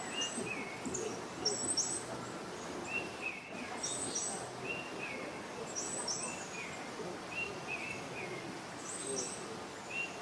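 A bird calling over and over, each call a very high chirp paired with a lower, downward-slurring note, repeated every second or so over a steady background murmur.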